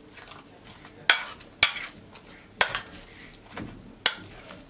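A metal fork stirring mashed potato filling in a plate, knocking against the plate in four sharp clinks spread over a few seconds.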